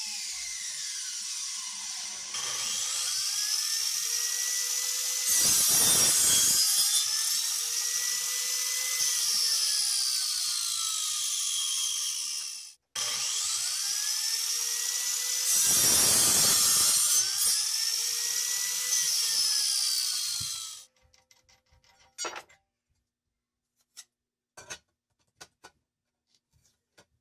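Angle grinder with a cutting disc sawing through wood: the motor whine sags and recovers as the disc bites, with a louder rasp during each of two cuts. The grinder stops about 21 seconds in, followed by a few light metallic clicks of the flange nut and washers being handled.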